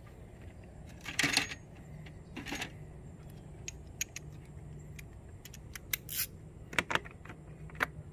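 Clicks and clatter of ATV plastic parts and a hand tool being handled and unclipped during disassembly: a louder rattle about a second in, another shortly after, then scattered short clicks.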